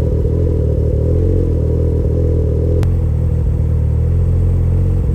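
An engine running steadily and loudly close to the microphone, with a deep, even hum. It starts and stops abruptly at edit cuts.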